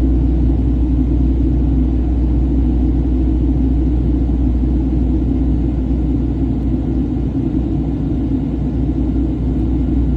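Steady low drone inside an airliner cabin in flight, the even rumble of engines and airflow.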